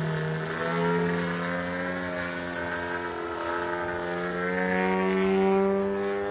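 Engine and propeller of a 33% scale Su-29 radio-controlled aerobatic model plane running in flight. The note dips slightly at the start, climbs back about a second in, and swells louder a little before the end as the plane manoeuvres.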